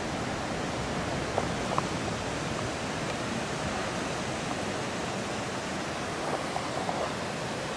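Steady, even rush of falling and splashing water, with a few faint ticks.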